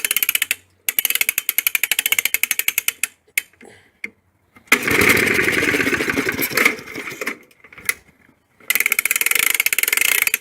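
1965 Briggs & Stratton 3 hp single-cylinder four-stroke engine running in spurts: it fires rapidly for about two seconds, cuts out, and picks up again several times, with a rougher burst about five seconds in. The owner takes the stumbling for fuel starvation from a clogged carburettor main jet.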